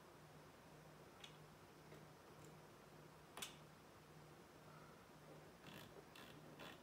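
Near silence: a faint low hum that pulses on and off about twice a second, with a few faint clicks, the clearest about halfway through.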